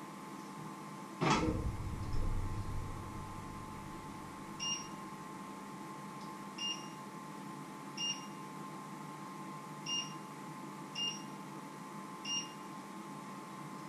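A heavy knock about a second in, then six short, identical electronic beeps at irregular intervals from the stove's touch-control panel, as settings are pressed. A steady electrical hum runs underneath.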